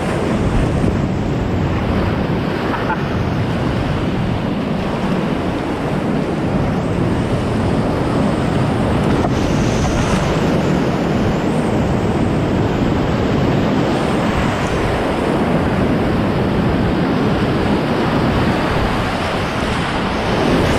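Whitewater river rushing over rapids: a loud, steady roar of water close to the microphone.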